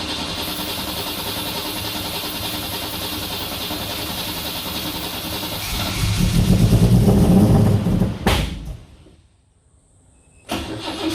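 Holden VK Commodore's 202 straight-six running roughly after eight years of sitting, revved up about six seconds in. Near the eight-second mark it cuts out to near silence, then the engine sound returns near the end.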